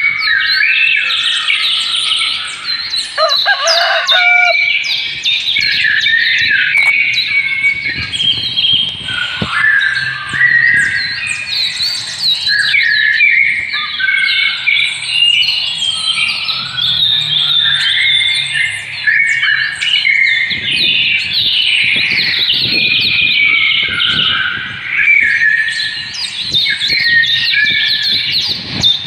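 Many small birds chirping and twittering together in a dense, continuous chorus of short high calls and whistled slides.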